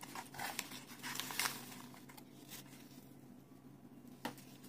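Crinkling and rustling of paper and foam packing peanuts as hands rummage through a small cardboard box, busiest in the first two seconds and then easing off. A single sharp click near the end.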